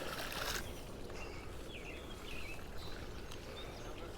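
Outdoor creek ambience: a steady low rush of noise with a few short bird chirps. A brief burst of loud rushing noise comes at the very start.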